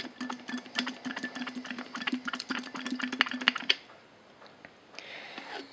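Garden sprayer emptying its leftover liquid through its tube back into a plastic bottle: rapid, irregular ticking and pattering over a steady hum, which stop about two-thirds of the way in. A short soft hiss follows near the end.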